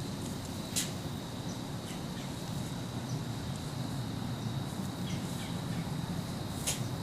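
A doe blowing, the snort-like 'sneeze' deer give when alarmed: two short, sharp hissing blows, one about a second in and another near the end, over a steady outdoor background.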